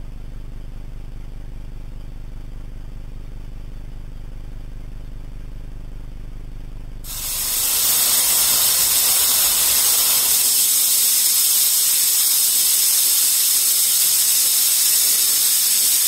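CNC router spindle running while a 1/32-inch two-flute end mill cuts acrylic. It starts as a steady low hum and changes abruptly about seven seconds in to a loud, steady, high hiss.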